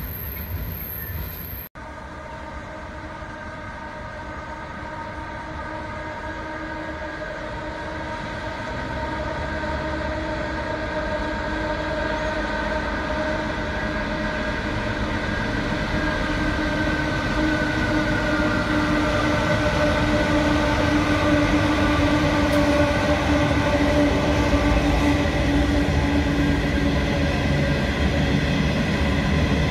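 Diesel locomotives hauling a coal train, their engines a steady pitched drone that grows steadily louder as they approach and pass. The pitch drops slightly as the locomotives go by, and the rumble of the hopper wagons follows.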